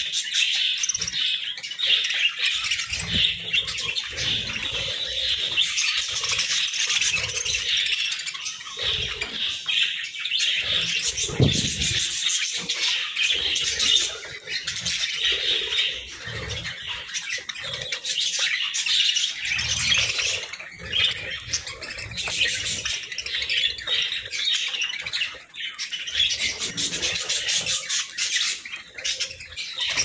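A flock of budgerigars chattering continuously, a dense mass of overlapping quick chirps and warbles, with wings fluttering now and then as birds land and take off.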